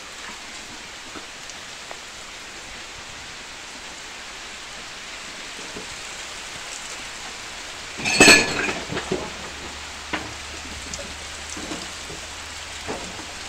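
Heavy rain falling steadily on the ground and plants, a constant hiss. About eight seconds in, a brief loud sound stands out above the rain, followed by a few fainter ticks.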